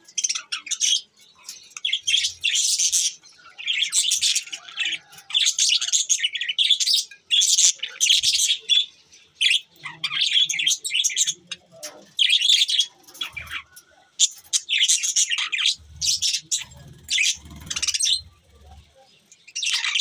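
A flock of budgerigars chirping and chattering: rapid high chirps and warbles in bouts a second or two long, with short pauses between.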